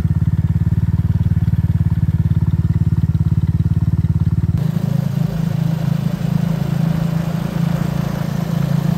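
Engine running with a steady, rapid pulsing beat. About halfway through it changes abruptly to a different, noisier engine sound, as of a vehicle moving along.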